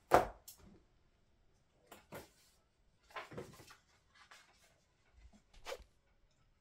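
Scattered small knocks, taps and rustles of things being handled at a desk: a sharp knock right at the start, then softer ones about two, three and a half and five and a half seconds in.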